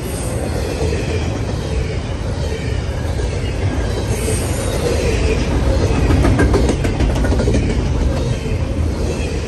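Norfolk Southern double-stack intermodal train's well cars rolling past at close range: a steady, loud rumble of steel wheels on rail, with a run of clicks and rattles about halfway through.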